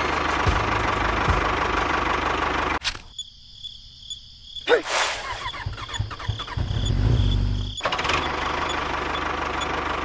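Dense mechanical running noise like an engine. It cuts off abruptly about three seconds in, a thinner stretch with a brief rising whine follows, and it returns abruptly near the eight-second mark.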